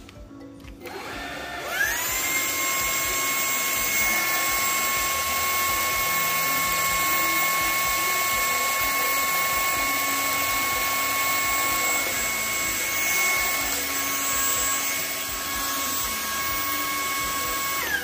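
Cordless stick vacuum cleaner switched on about a second and a half in. Its motor spins up with a quickly rising whine and then runs at a steady high-pitched whine over a rushing hiss. Near the end it is switched off and the whine falls away as the motor winds down.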